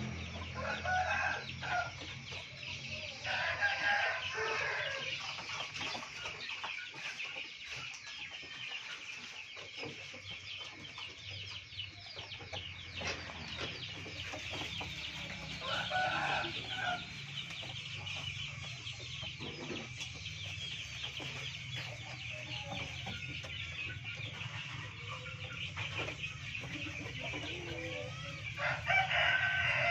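Chickens clucking, with several longer, louder calls, possibly rooster crows, about a second, four seconds, sixteen seconds and near the end, over a steady high chirring.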